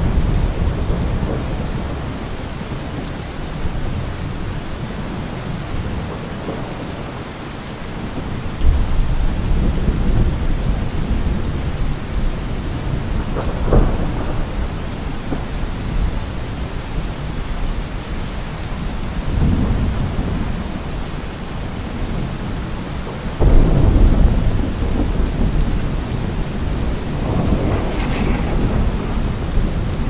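Steady rain with thunder rumbling several times. The heaviest peals come in sharply about a third of the way in and again about three quarters through.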